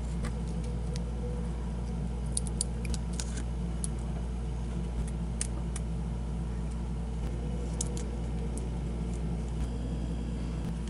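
Scattered small clicks and ticks of a precision screwdriver and plastic quadcopter arms being handled as the arms are screwed onto the frame, bunched in two clusters, over a steady low hum.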